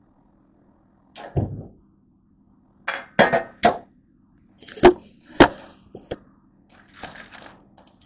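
Kitchen clatter as a metal sheet pan is set down and shifted on the counter: a run of sharp clanks and knocks, the loudest about five seconds in, then softer scraping and rustling near the end.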